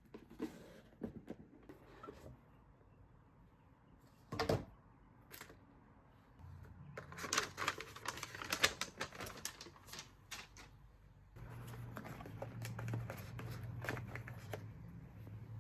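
Close handling noises: a run of small clicks, taps and rustles, busiest in the middle, over a low steady hum that comes in about six seconds in and grows louder near the end.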